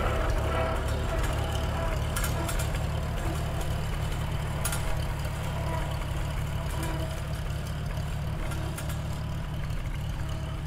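1942 Farmall H's four-cylinder gasoline engine running steadily as the tractor drives, growing slowly quieter as it moves away.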